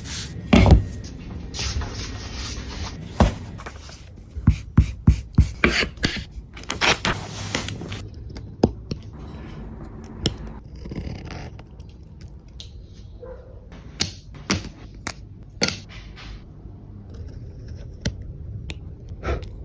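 Woodworking sounds: irregular sharp knocks and taps on wood, with a quick run of strikes about five seconds in, over rough scraping.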